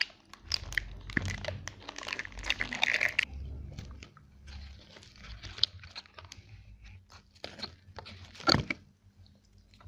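Close-miked crunching and chewing of food, with crinkling. It is dense for the first three seconds, then thins to scattered crunches, with one loud sharp crunch about eight and a half seconds in.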